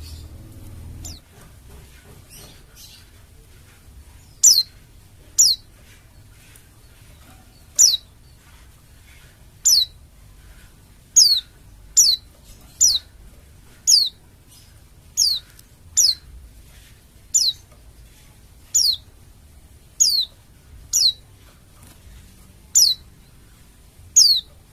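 Pleci dakun Bali white-eye giving short, high calls that each sweep steeply downward. After a few faint calls, loud calls repeat about once a second from about four seconds in.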